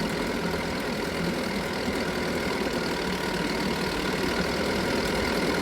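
Chrysler 4.4 hp two-stroke outboard motor idling steadily in gear.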